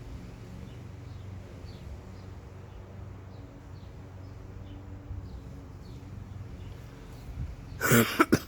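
Litex Brilliant Hugger ceiling fan motor humming steadily while running at high speed, with faint short high chirps. A loud sudden noise comes near the end.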